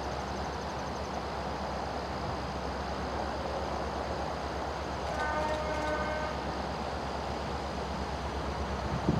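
Two SD40-3 diesel-electric locomotives with EMD two-stroke diesels working hard under a heavy freight train: a steady low, fast-pulsing drone. About five seconds in the locomotive horn sounds for about a second, and there is a short thump near the end.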